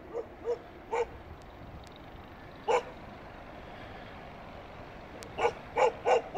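A dog barking: scattered single barks, then four quick barks in a row near the end.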